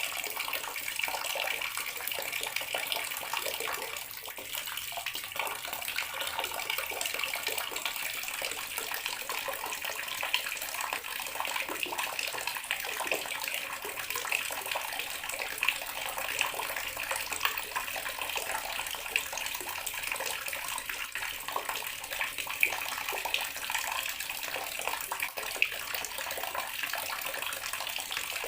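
Water tap running steadily into a bathroom sink, a constant splashing stream.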